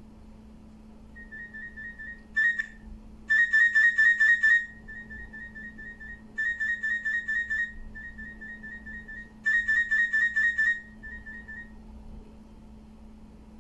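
A Sony Ericsson T300 ringtone played back on a Nokia 202 phone through an external speaker: rapid electronic beeping at a single high pitch. It turns much louder and buzzier in four short stretches, then stops about 12 seconds in.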